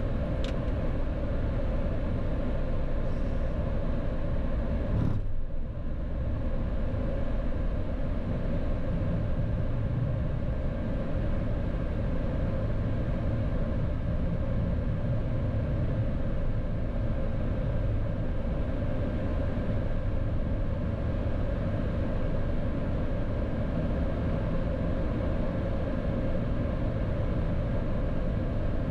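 Steady cockpit noise of a Boeing 737-800 taxiing with its engines running: a low rumble under an even hiss. The hiss dips briefly about five seconds in.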